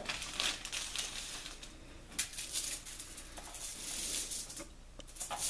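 Quiet rustling and crinkling in several short, irregular bursts, from hands working pizza-crust dough on a foil-lined baking sheet.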